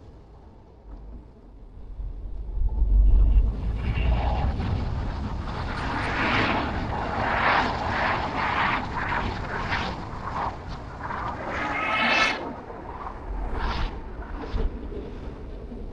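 Car on the move: road and engine noise, quiet at first, then swelling about two seconds in with a deep rumble and staying loud and unsteady until it eases near the end.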